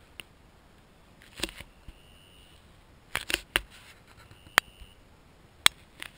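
Sharp clicks and knocks of a handheld action camera being moved and handled, scattered through, the loudest two near the end. Behind them, faint short buzzing calls from the woods' crickets and tree frogs, heard twice.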